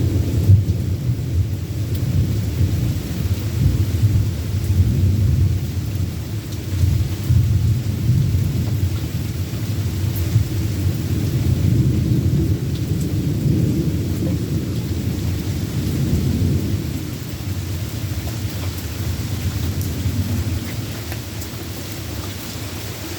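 Steady rain with a long roll of thunder rumbling under it, swelling and ebbing, then fading away over the last few seconds.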